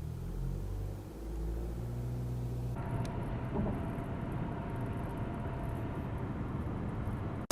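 BMW 520d's four-cylinder turbodiesel engine running steadily. The sound changes abruptly about three seconds in and becomes brighter, with a fine ticking on top.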